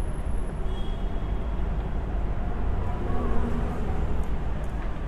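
City street traffic ambience: a steady low rumble of passing vehicles.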